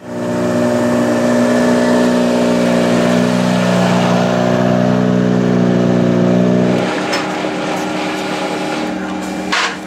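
A rally car's engine running loud at a steady pitch, then dropping back to a quieter steady note about seven seconds in. A short sharp click comes near the end.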